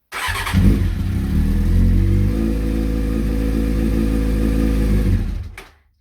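Honda CBR600F's inline-four engine cranked on the starter, catching and running on about half choke, its pitch shifting about two seconds in, then dying after about five seconds. It starts only briefly and will not keep running, which the owner suspects means the carburettors need attention.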